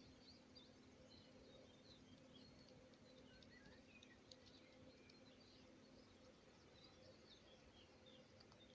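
Near silence: a quiet outdoor background with faint small bird chirps and calls scattered throughout, over a faint steady low hum.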